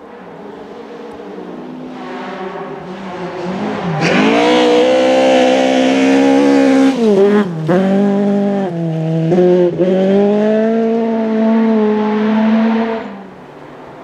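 Historic rally car's engine at full throttle, growing louder as it approaches and passes. It lifts off sharply three times in quick succession around the middle, picks up again at high revs, and cuts down near the end as the car moves away.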